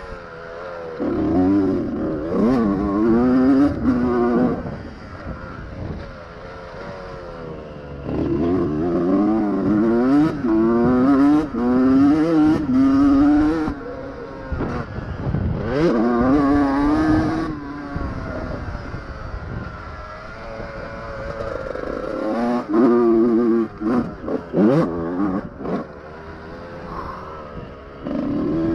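Two-stroke single-cylinder engine of a 2001 Honda CR125R motocross bike revving hard in repeated bursts, its pitch climbing and dropping as the throttle is opened and shut, with quieter stretches between bursts. Scattered clattering knocks from the bike, mostly in the second half.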